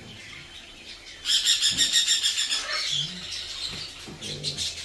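A parrot calling: a loud, rapid chattering call starts about a second in and lasts about a second and a half, followed by fainter chatter near the end.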